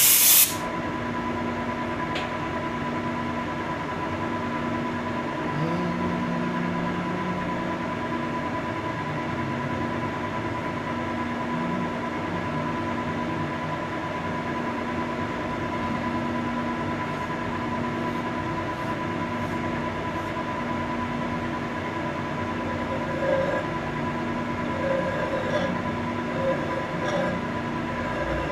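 Monarch metal lathe running steadily, turning a steel square-thread screw: an even hum with a thin steady whine. It opens with a short blast of compressed air from a blow gun that cuts off about half a second in.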